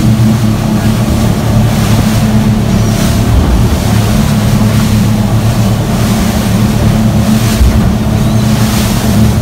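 Fishing charter boat's engine running steadily under way at speed, a loud low drone, over the rush of the wake and spray, with wind on the microphone.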